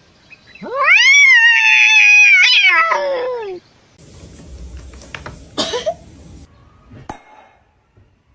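A cat's long yowling meow that rises in pitch, holds for about two seconds and slides down as it fades. Quieter scuffling and a brief short sound follow.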